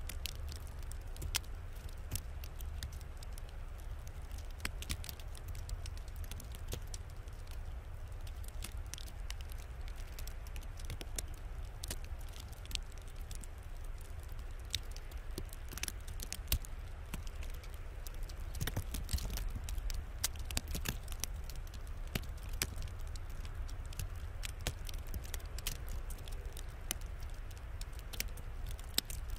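Irregular small ticks and crackles of ice pellets striking the icy deck and camera during an ice storm, over a steady low rumble.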